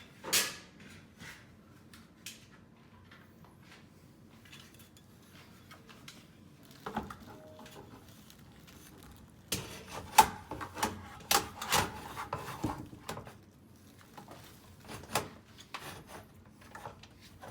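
A level and the organizer track being handled and held against the closet wall: scattered light knocks, taps and rubbing, with a busier run of clattering from about ten to thirteen seconds in.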